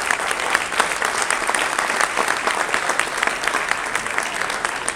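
Audience applauding steadily, a dense patter of many hands with individual sharp claps standing out.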